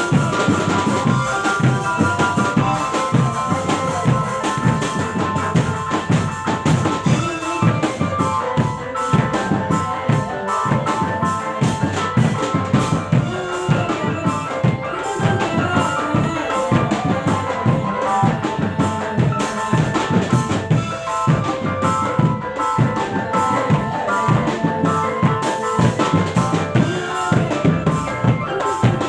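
Music led by drums, with a fast steady beat of struck percussion under sustained melodic notes.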